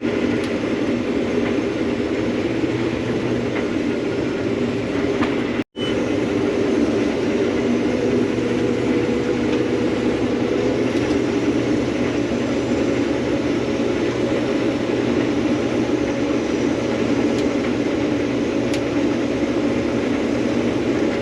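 Combine harvester running steadily while harvesting soybeans: a dense, even drone of engine and threshing machinery. The sound cuts out for an instant about six seconds in.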